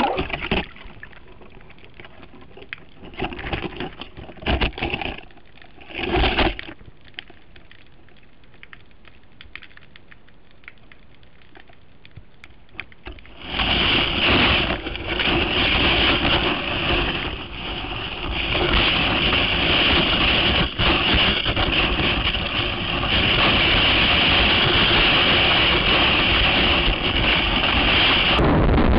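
Sound picked up by an underwater camera on a surf-casting rig. It splashes into the water at the start and goes to a muffled underwater hush with a few short bursts. About 13 seconds in, a loud, steady rushing and hissing of water against the camera housing near the sandy seabed sets in.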